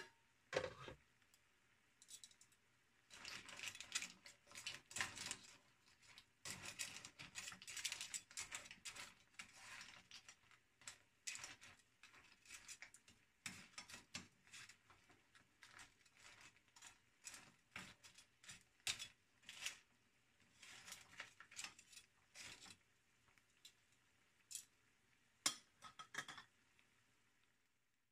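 Clam shells and crab pieces clinking and scraping against each other and a non-stick frying pan as they are moved around. The light clicks come irregularly, with short pauses, and a few sharper clinks near the start and again close to the end.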